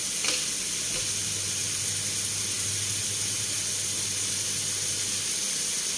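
Bicol Express ingredients sizzling in a cooking pan, a steady hiss, with a single sharp click just after the start.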